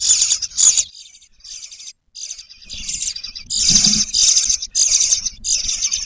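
Bluebird nestlings begging inside a nest box: a run of short, raspy, high-pitched calls, about two a second, with a brief pause near the start.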